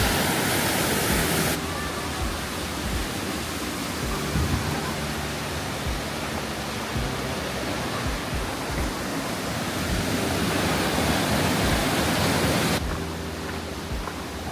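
Waterfall with fast-flowing water, rushing steadily. The hiss thins out abruptly near the end.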